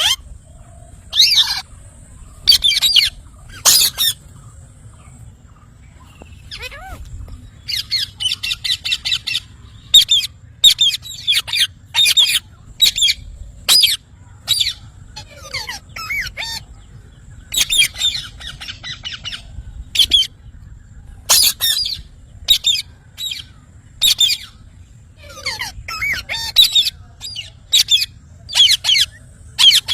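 Parrot calling: repeated short, high-pitched shrill calls with gaps between, and a few runs of rapid chattering notes.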